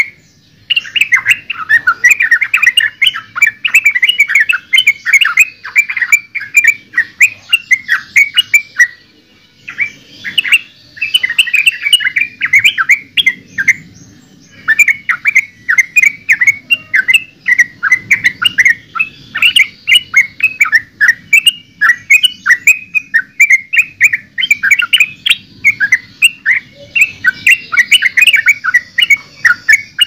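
Yellow-vented bulbul singing: a fast, bubbling chatter of notes in long runs, broken by a couple of short pauses.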